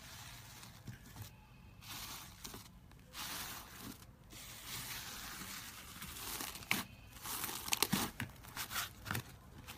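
Hands pressing into grey textured slime studded with letter beads, a soft crackling rustle in patches. In the second half, hands knead glossy black slime, which gives off many sharp, wet clicks and pops.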